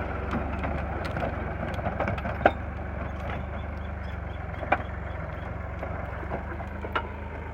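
Massey Ferguson 260 Turbo tractor's diesel engine running steadily as it moves off with its rotavator. Three sharp knocks stand out, about two seconds apart.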